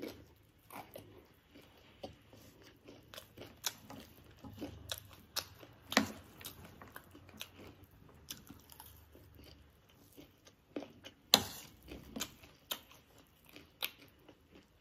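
Close-up chewing and crunching of spicy chatpate, a puffed-rice snack mix, with crunchy gol finger (dhungri) sticks: irregular crisp crackles of bites and chews, with a louder crunch about halfway and another about three quarters through.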